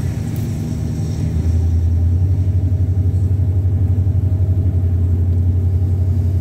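Car engine and tyres heard from inside the cabin as a low steady drone, growing louder about a second and a half in.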